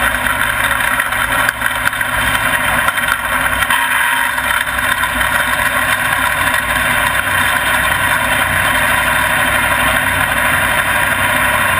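Dirt-track race car's engine running steadily at low revs, heard loud and close from an in-car camera, with no big revving.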